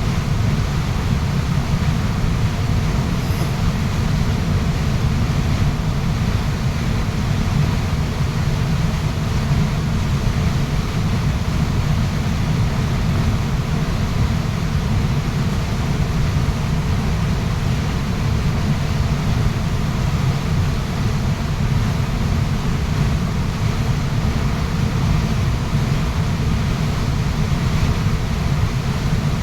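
Waterfall's water rushing steadily: a deep, even rumble with a fainter hiss above it, unchanging throughout.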